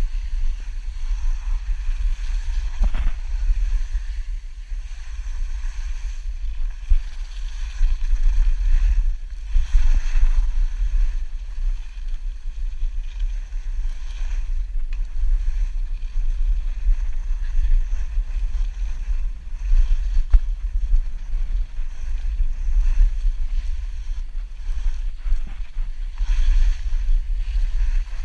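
Wind rumbling steadily on the microphone of a camera worn while skiing, over the hiss of skis sliding and scraping on packed snow.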